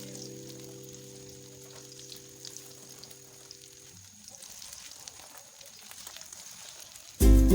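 Chicken shami kababs frying in oil in a pan, a faint sizzle with light crackles. The tail of background music fades out in the first half, and loud music starts just before the end.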